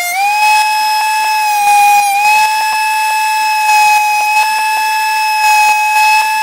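Electric woodworking power tool running at speed with a steady high whine. Its pitch sags briefly about two seconds in, as the cutter is loaded by the wood.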